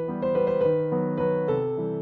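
Background piano music: a melody of single notes struck a few times a second over held chords.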